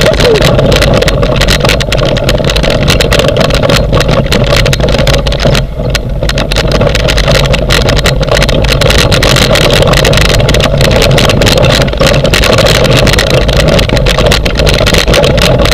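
Steady rumble and rattle of a dog-pulled training rig rolling over rough grass, with many small clicks and knocks from its frame, heard through a camera mounted on the rig's handlebars.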